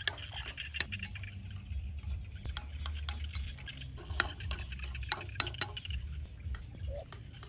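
Metal spoon stirring soup in an enamel bowl, clinking against the bowl in quick irregular taps with the liquid sloshing.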